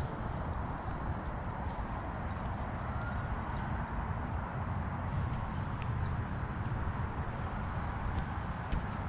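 An insect, likely a cricket, chirping steadily at about two chirps a second over a low, constant rumble of outdoor background noise.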